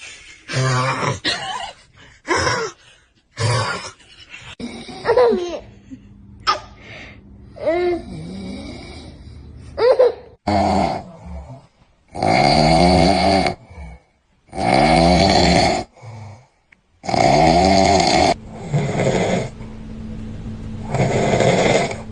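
A man snoring heavily in his sleep. In the second half come four long, loud snores, each about a second and a half. Shorter, pitch-bending vocal sounds come before them in the first few seconds.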